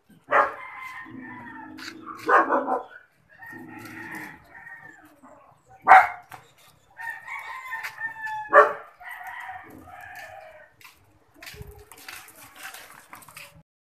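Roosters crowing, one long call after another, each starting sharply, about every two seconds.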